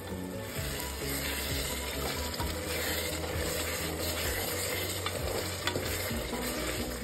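A ladle stirring a thick masala gravy sizzling in hot oil in a pot, with a steady frying hiss and small scraping clicks against the pot.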